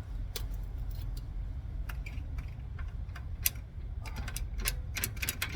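Light metallic clicks and clinks of hand tools working steering-linkage hardware, scattered at first and then a quick run of them about four seconds in, over a steady low hum.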